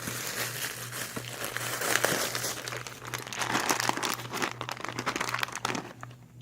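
Packaging being crinkled and torn open by hand, a dense run of crackles and small clicks that stops near the end.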